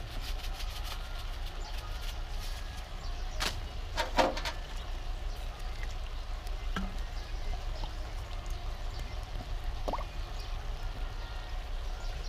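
Stir-fry of vegetables and seafood sizzling in a pan over a charcoal stove, a steady hiss, with a few sharp taps of utensils, the loudest about three and four seconds in.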